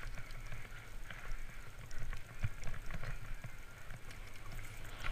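Trek Fuel EX 8 full-suspension mountain bike riding fast down a dirt forest trail: tyres rolling over the ground, with frequent short clicks and knocks from the bike over bumps and a steady wind rumble on the microphone.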